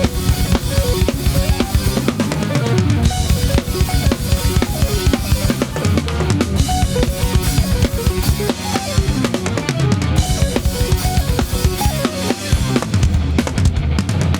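Drum kit played at a steady, fast pace: bass drum, snare with rimshots, and cymbals, over loud backing music.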